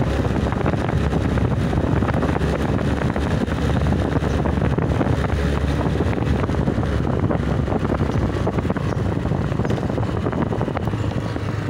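Motorcycle engine running steadily while riding at about 37 km/h, with wind rushing over the microphone.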